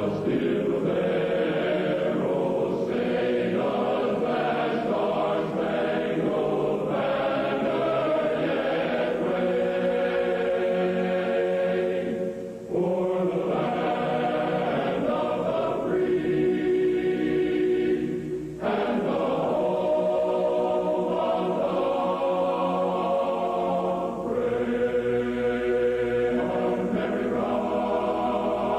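A choir singing a national anthem in slow, held phrases, with brief breaks between phrases.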